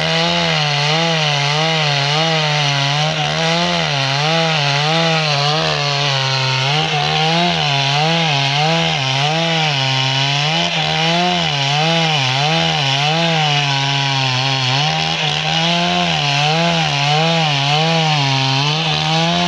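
Chainsaw running under load as it cuts lengthwise through timber to split it. Its engine pitch wavers up and down about once a second as the chain bites and eases.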